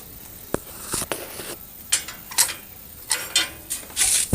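Irregular clicks and clinks of small hard objects being handled, about a dozen, growing busier toward the end with a sharp knock at the very end.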